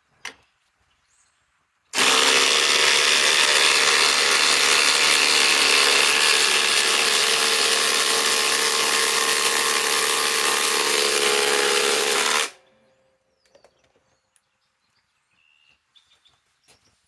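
Two cordless impact drivers, a Ryobi and a DeWalt XR DCF845, both in high speed, hammering together as they drive 6-inch PowerLag screws into stacked timber. They start about two seconds in, run loudly and steadily for about ten seconds, and stop abruptly.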